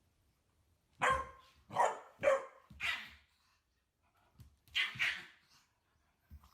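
Chihuahua barking: four quick, sharp barks starting about a second in, then two more near the end.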